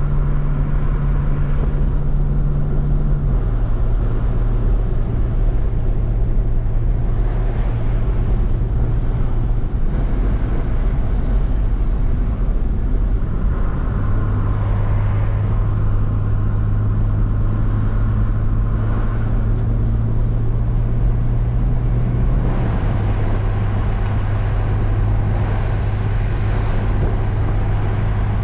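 A BMW's engine droning inside the cabin at track speed, with tyre and wind noise around it. The engine holds a steady pitch for several seconds at a time and drops a step lower a few times.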